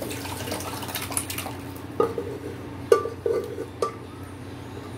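Boiled, mashed vegetables poured from a pressure cooker into a kadhai of fried masala, splashing in for the first second or so. Then a spoon knocks sharply against the pans four times.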